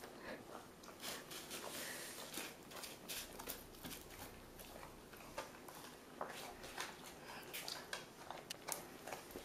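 Airedale terrier eating off a paper plate: soft, irregular clicks and crunches of biting and chewing.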